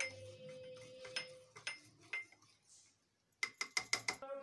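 Plastic spoon stirring a yeast mixture in a ceramic mug, clinking against its sides: a few separate taps, then a quick run of taps near the end.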